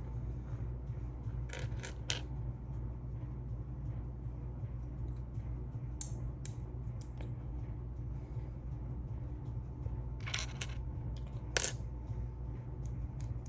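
Small plastic Lego pieces clicking and clattering as they are handled and fitted, in scattered sharp clicks, some in quick pairs, over a steady low hum.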